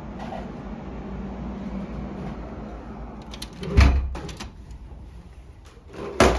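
A steady low background rumble, then two sharp thuds about two and a half seconds apart, the first the louder.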